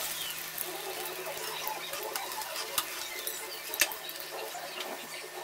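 Breadcrumb-coated bread rolls deep-frying in a wok of hot oil: a steady sizzle with many small crackling pops, the sharpest about three and four seconds in.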